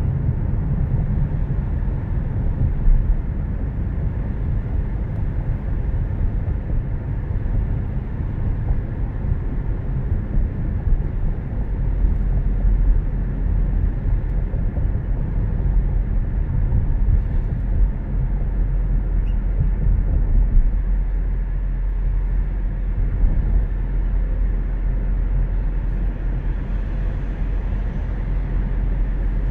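Steady low road and engine rumble of a car driving at about 27 mph, heard inside the cabin.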